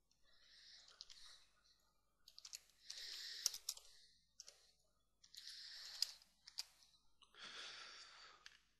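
Faint computer keyboard keystrokes and mouse clicks, sharp and scattered, with soft breathy hiss between them.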